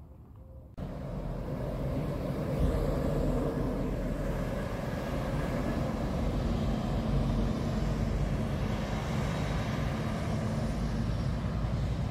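Road traffic: a heavy vehicle's engine running steadily with a low rumble. It cuts in suddenly about a second in.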